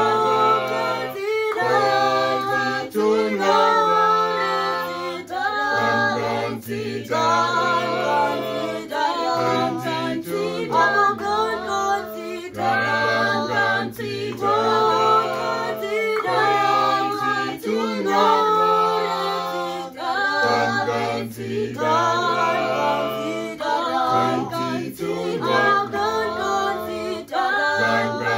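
Choir singing unaccompanied, several voices in harmony over a low bass part, in phrases of a few seconds each.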